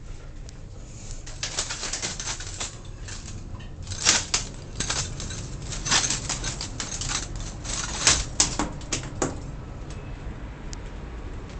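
Inside a moving elevator car: a low steady hum under irregular bursts of rustling and scuffing noise, heaviest from about four to nine seconds in.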